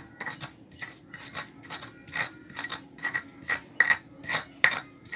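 Garlic cloves being pounded and ground with a pestle in a mortar (Indonesian cobek and ulekan), a steady rhythm of short, sharp strokes about twice a second.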